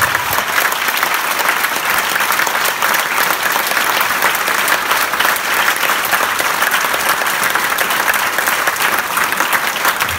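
Crowd applause: many hands clapping densely and steadily.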